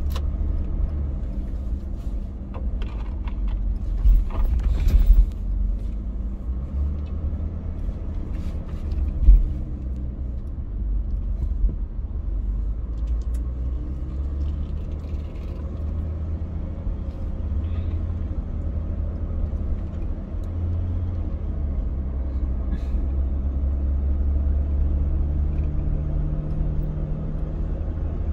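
Car driving, with a steady low rumble of engine and tyres. A cluster of thumps comes about four to five seconds in and another single thump about nine seconds in, as the wheels go over a speed bump.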